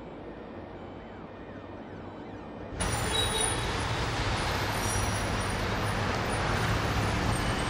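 A quiet low hum gives way suddenly, about three seconds in, to loud city street traffic noise: cars and a taxi running close by.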